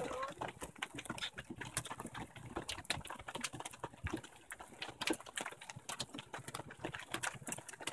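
Hail coming down, a dense, irregular patter of small sharp clicks as the hailstones strike and bounce.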